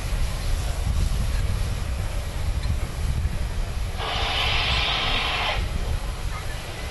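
Steam hissing from the front end of the standing A1 Pacific steam locomotive 60163 Tornado, a loud burst about four seconds in that lasts about a second and a half and then cuts off, over a steady low rumble.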